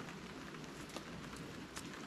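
Steady rain falling, with single drops striking a camp tarp every so often as sharp ticks.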